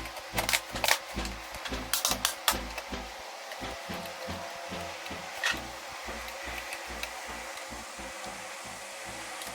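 Sharp clicks and knocks of laptop parts being handled and fitted during reassembly, several in quick succession over the first three seconds and one more about five and a half seconds in, over a steady hiss.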